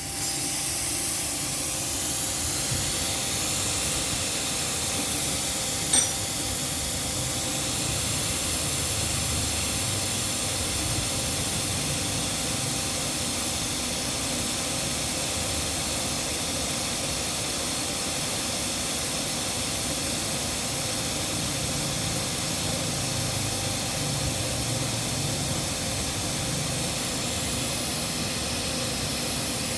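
Steady hiss of compressed air flowing through a Topre TPD-3C refrigerated air dryer on test, with its refrigeration compressor running underneath. A short click about six seconds in.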